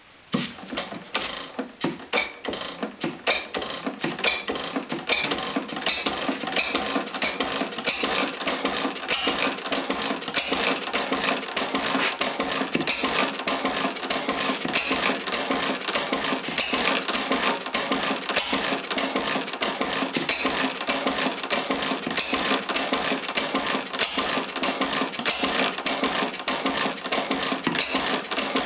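Schleicher Schumm inverted Otto antique single-cylinder gas engine started by swinging its flywheel. It gives a few separate loud strokes over the first few seconds as it catches and picks up speed, then settles into a fast, steady mechanical clatter, running well.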